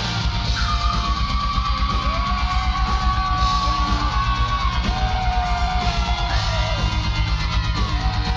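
A heavy metal band playing loudly through a venue PA: distorted electric guitar over a fast, steady kick drum. Two long held notes ring over it, the first for about four seconds, the second lower.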